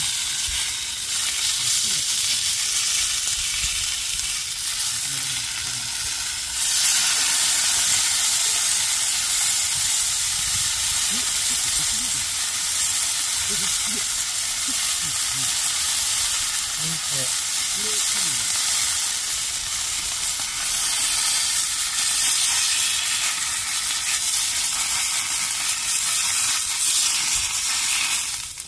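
Steady sizzling hiss, stepping up in level about six and a half seconds in and holding there.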